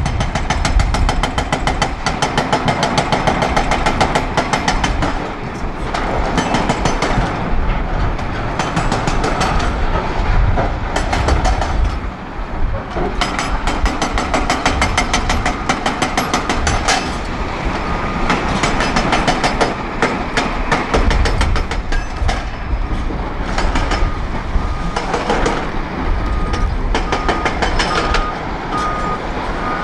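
Hydraulic breaker on a Volvo EC380D excavator hammering quarry rock in rapid blows, in runs with short pauses between them. From a little past halfway a reversing alarm beeps steadily over it.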